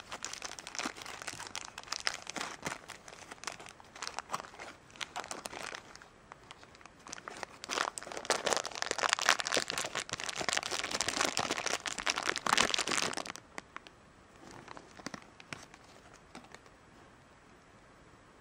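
Thin clear plastic wrapper bag crinkling and rustling as it is handled and pulled off a small toy. It grows loudest and densest midway, then thins out to a few faint rustles near the end.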